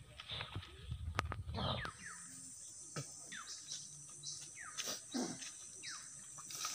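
Birds calling in open countryside, many short calls that each slide down in pitch, about one every half second, over a steady high insect buzz. A low rumble fills the first two seconds, with a single sharp click about a second in.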